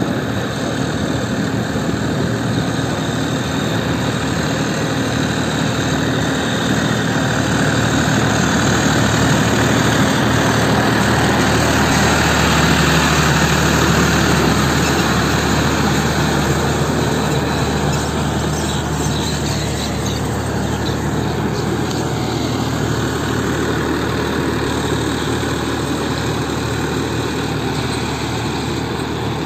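John Deere 5405 tractor's three-cylinder diesel engine running steadily under load while driving a rotavator through wet paddy mud. It gets louder as the tractor passes close, about halfway through, then eases off.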